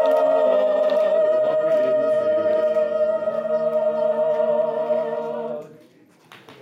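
A cappella choir holding a sustained final chord, which is cut off a little before the end and dies away briefly in the echo of the stone walls.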